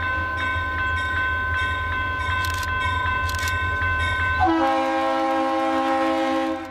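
Diesel locomotive's air horn sounding a long multi-note blast for a grade crossing. The chord changes about four and a half seconds in and the horn stops near the end, over the low rumble of the locomotive's engine and a crossing bell ringing.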